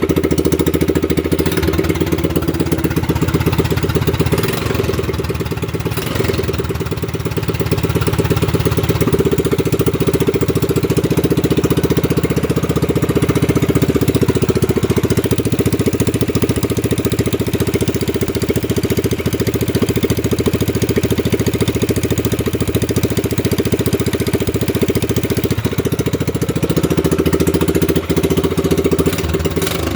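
A 196cc single-cylinder four-stroke mini bike engine running at a steady idle, its level swelling slightly now and then.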